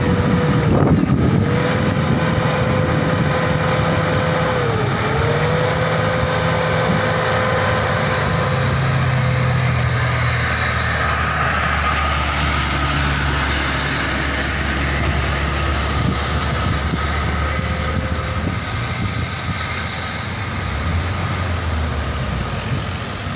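Diesel engine of a loaded Hino 500 truck running under strain on a steep uphill, not strong enough to make the climb, with other cars passing close by.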